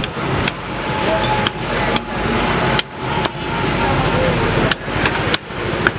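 Heavy butcher's cleaver chopping goat meat on a wooden stump chopping block: about nine sharp chops at uneven intervals, over a steady background noise.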